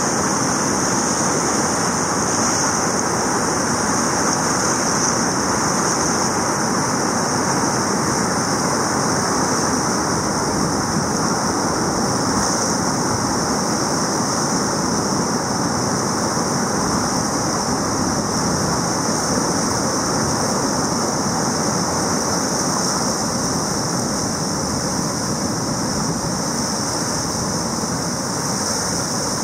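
River rapids: fast, churning whitewater on a large river, a steady rushing roar with a constant high hiss over it.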